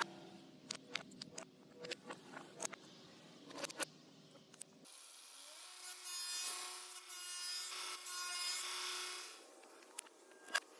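Woodworking sounds: a string of sharp knocks and clicks on wood, then, after about five seconds, a power tool cutting or sanding wood for a few seconds before it stops.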